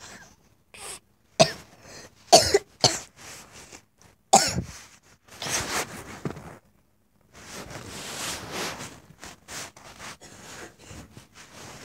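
A young girl coughing and clearing her throat several times in short, sharp bursts, then fabric rubbing over the phone's microphone in two longer stretches of noise.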